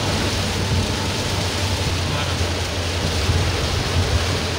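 Heavy rain falling on a car's roof and windshield, heard from inside the cabin as a steady hiss over a constant low engine and road rumble.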